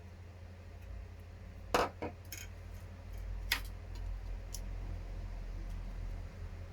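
Small hard plastic model parts clicking and tapping as they are handled and fitted: a few sharp clicks, the loudest pair about two seconds in and another near the middle.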